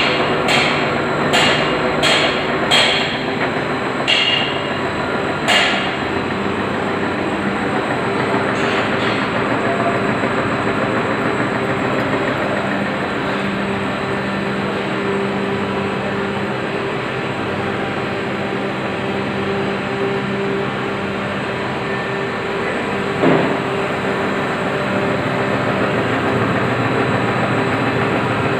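Lorenz LS150 CNC gear shaper running with a steady mechanical hum. A series of sharp knocks comes in the first six seconds or so, with one more about two-thirds of the way through.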